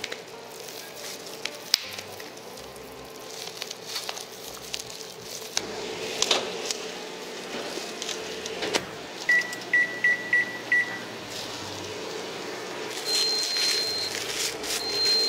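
Handling knocks and a microwave door shutting, then a quick run of about five short keypad beeps at one pitch. Near the end come two longer, higher beeps: the automatic ramen cooker signalling that it has finished cooking.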